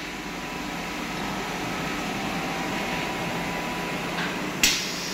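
Steady hum and hiss of factory-floor machinery and ventilation. About four and a half seconds in there is one sharp clack, followed by about a second of hiss.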